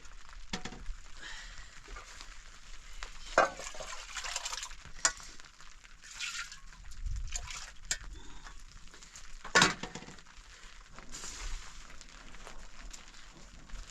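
Food sizzling in a frying pan while being stirred and turned, with a few sharp knocks of a utensil against the pan, the loudest about nine and a half seconds in.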